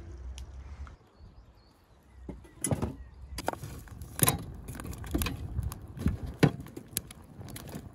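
Split firewood logs knocking and clattering as they are shifted with a long metal poker in an open fire, a series of irregular knocks starting about two and a half seconds in.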